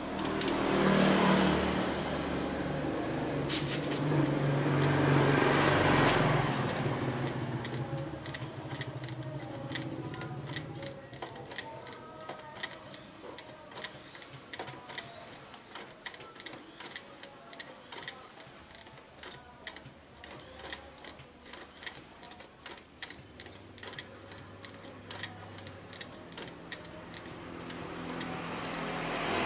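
Mitsubishi electric sewing machine running at speed for the first several seconds, then slowing and falling quiet to a light, fast ticking, and picking up again near the end.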